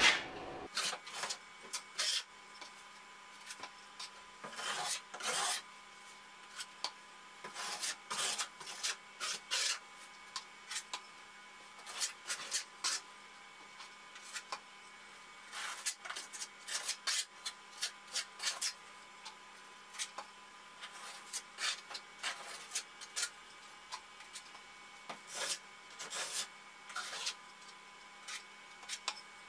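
Trowel spreading thin-set mortar over cement board seams in many short, irregular scraping strokes, with mortar now and then scraped out of a bucket.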